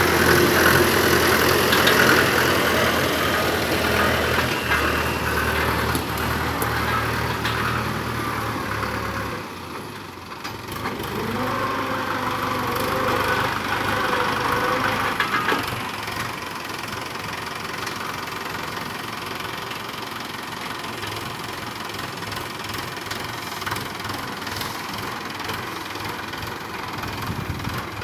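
Tractor diesel engine running steadily. Its low note drops away about nine seconds in, and a few seconds later a tone rises and falls as the engine keeps running.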